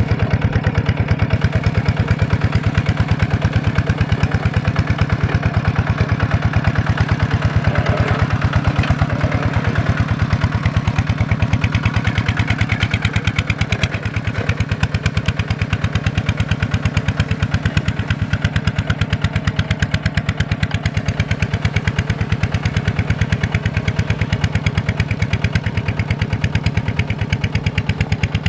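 Small Kubota single-cylinder diesel engine running steadily at a constant speed, its firing strokes evenly spaced.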